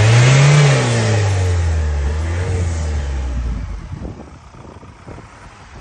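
Ford Transit Custom's diesel engine running loud. Its pitch rises briefly, then falls away over about three seconds as the sound fades, leaving only low background noise near the end.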